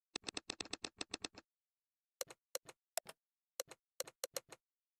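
Smartphone on-screen keyboard key-press clicks: a fast run of about ten clicks as the old device name is deleted, then slower, uneven taps as a new name is typed.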